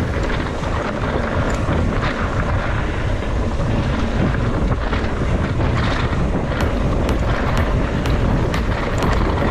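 Wind buffeting the microphone of a mountain bike rider's camera on a fast descent, with scattered sharp knocks and rattles of the bike over rough trail, more frequent in the last few seconds.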